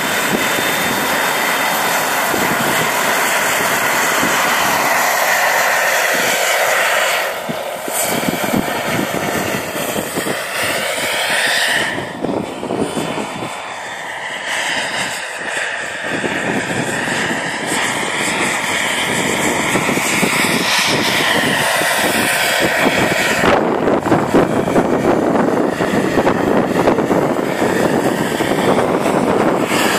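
JetCat PHT3 turboshaft turbine of a Mobb PowerCat large-scale RC helicopter whining in flight over a rushing noise. The whine bends up and down in pitch as the helicopter moves about. It fades somewhat while the helicopter is far off in the middle and grows louder as it comes back close near the end.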